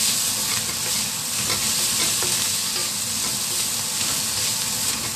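Fried rice sizzling in a stainless steel wok, with a steady hiss, while a wooden spatula scrapes and tosses the rice against the pan.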